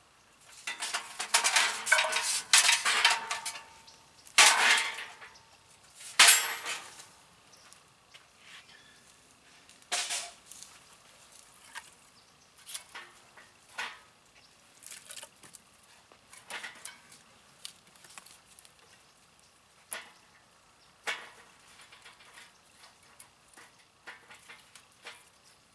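Metal and charcoal clattering in a steel fire pit as a charcoal fire is started: three loud clattering spells in the first seven seconds, the first with a short metallic ring, then scattered light clicks and clinks.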